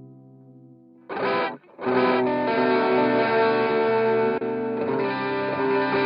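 Electric guitar played through a Hotone Ampero II multi-effects processor: a held chord fades out, a short strum about a second in is cut off, and from about two seconds in chords ring on, sustained and layered with effects.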